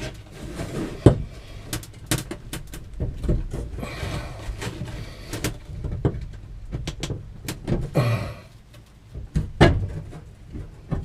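Irregular knocks, clunks and short scrapes of hands and tools working parts in a cramped compartment. The loudest knock comes near the end.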